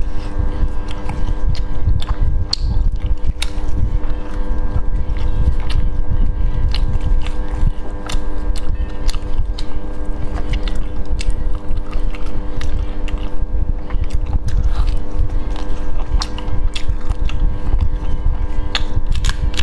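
Close-miked eating of spicy shellfish: many small clicks and cracks as shells are pried apart with plastic-gloved fingers, with chewing, over a steady low rumble and hum.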